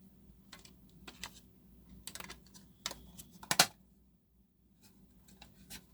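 Pens and a plastic pen box being handled: a scatter of small clicks and taps, the loudest a quick double knock about three and a half seconds in.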